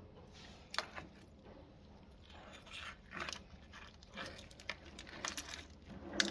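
Irregular handling noises: a series of short rustles and scrapes with sharp clicks and clinks of small hard objects, the sharpest about a second in and again just before the end.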